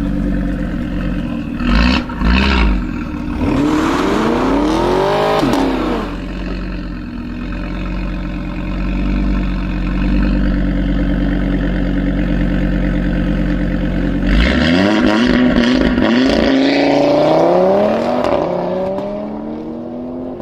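Audi RS3 8V's turbocharged five-cylinder through a Milltek aftermarket exhaust. It gives two sharp blips near the start, then a rev that rises and falls. After a steady stretch the revs climb again through the last third.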